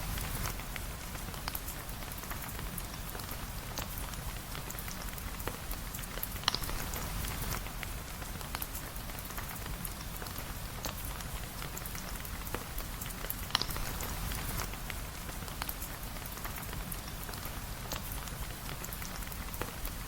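Steady rain falling, a dense even patter of drops with scattered small ticks, and a sharper single drip or pop standing out about every seven seconds.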